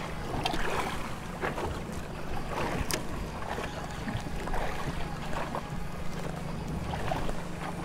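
Outboard motor running steadily at idle, with water lapping against the boat and wind on the microphone. A single sharp click comes about three seconds in.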